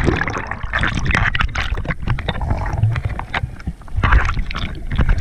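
Water sloshing, splashing and bubbling around an action camera plunged just under the surface, muffled and gurgling.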